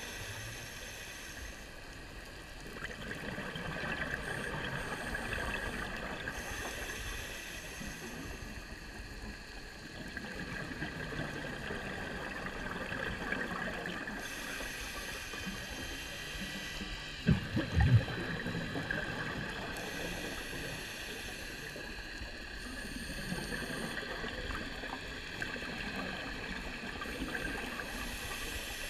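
Muffled underwater ambience: a steady wash of water noise with a faint hiss that swells and fades every few seconds. Two low knocks stand out about two-thirds of the way through.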